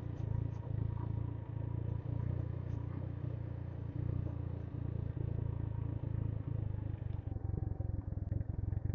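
Motorcycle engine running at low, steady revs as the bike rolls down a broken mountain road, with light rattles from the rough surface and road and wind noise.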